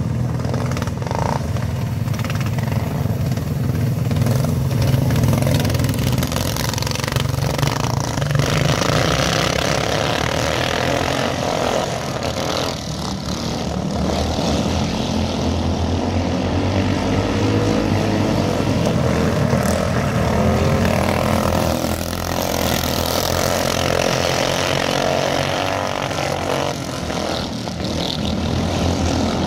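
A pack of 390 cc single-cylinder four-stroke dirt-oval racing karts running at race pace round the track. Their engine notes rise and fall as they accelerate out of the turns and pass by.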